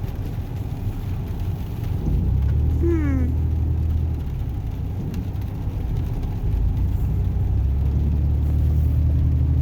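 Truck's engine and road noise heard inside the cab while driving: a steady low drone that grows louder about two seconds in and then holds.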